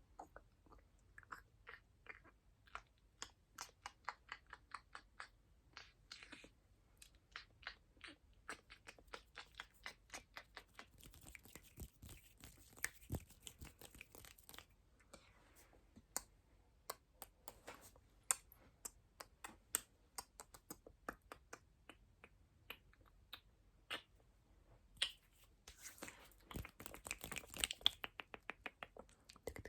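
Close-miked ASMR mouth sounds: a quick run of soft, wet clicks and smacks, about two or three a second. Twice a soft hissing or rustling rises for a few seconds.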